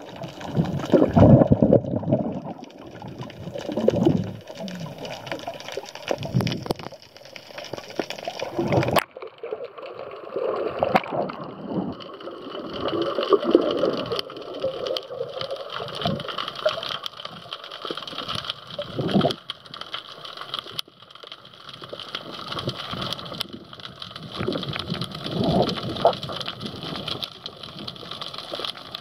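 Muffled underwater sound picked up by a camera in a waterproof housing: irregular swishing and bubbling of water that swells and fades every second or two. From about nine seconds in, a faint steady mechanical hum sits underneath it.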